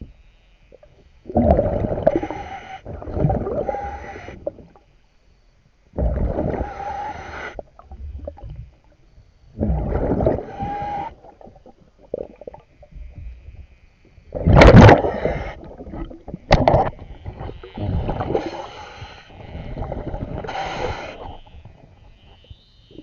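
Scuba diver breathing through a regulator underwater: bursts of exhaled bubbles gurgling out every few seconds, one or two seconds each, with the loudest burst about two-thirds of the way through.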